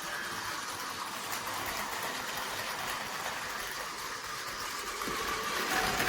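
Battery-powered Tomy Plarail toy trains running on plastic track: a steady whir of their small electric motors and gearing, getting a little louder near the end.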